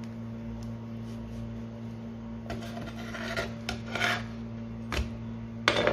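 Metal spatula scraping across a nonstick double-sided grill pan as flatbreads are slid and turned, with a few scrapes in the middle and two sharp taps of metal on the pan near the end, over a steady low hum.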